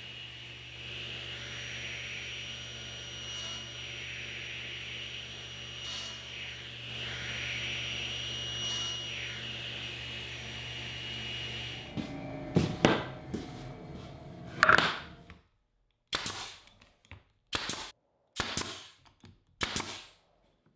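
Table saw running steadily with a whine, its blade taking repeated passes through a Douglas fir 2x4 to cut a lap joint on a crosscut sled. About twelve seconds in this gives way to a brad nailer firing sharp, loud shots, seven or eight in a row, each a fraction of a second to a second and a half apart.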